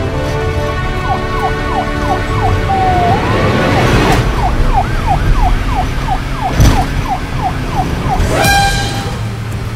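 Police siren sound effect wailing in a fast yelp of falling sweeps, a few a second, over background music. A couple of sharp hits break in about four and six and a half seconds in.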